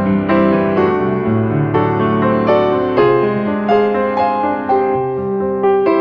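Background piano music: a melody of separate notes, a new one about every half second, over held low notes.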